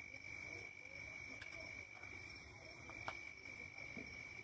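Crickets trilling steadily, faint, with a few short clicks, the loudest about three seconds in.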